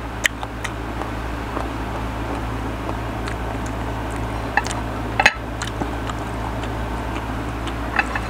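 Soft wet mouth sounds and scattered small clicks of someone eating mango slices dipped in shrimp paste, over a steady background hum; the sharpest click comes about five seconds in.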